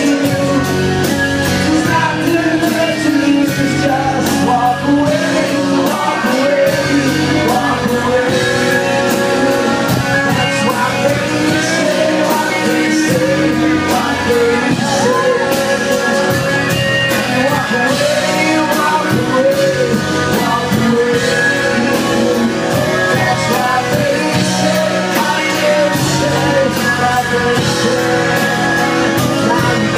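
Live song with a steadily strummed acoustic guitar and a man singing, amplified through the hall's PA.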